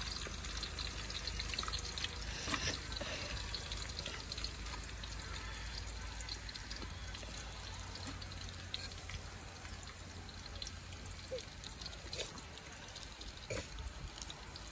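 Chopped onion sizzling in hot oil in a cooking pan, a steady hiss with scattered small crackles and pops.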